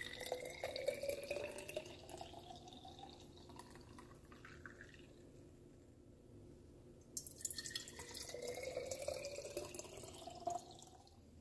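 Golden latte poured from a glass measuring cup into a glass bottle, the pitch of the pour rising steadily as the bottle fills. After a short pause about five seconds in, a second glass bottle is filled the same way, its pitch rising again until the pour stops near the end.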